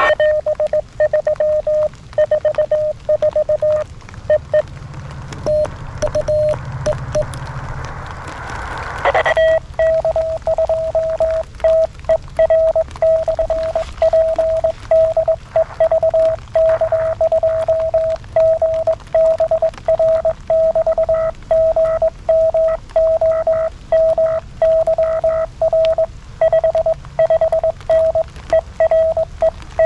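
Morse code (CW) received on 40 m and played through the (tr)uSDX QRP transceiver's speaker as one steady beep pitch keyed on and off. A few short tones come over a faint band hiss at first. A quick falling sweep comes just before nine seconds in, then a continuous run of dots and dashes as another station calls in.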